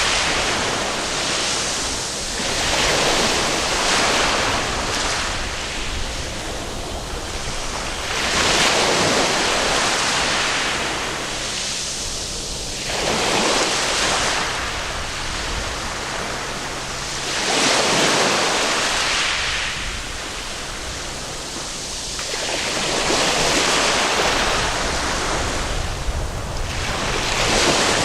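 Waves breaking and washing up a sandy beach, the surf swelling and falling back about every four to six seconds.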